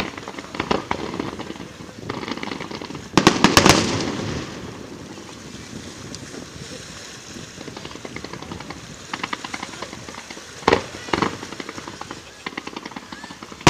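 Fireworks display: a quick cluster of loud bangs about three seconds in, runs of rapid popping, and two more sharp bangs close together near eleven seconds.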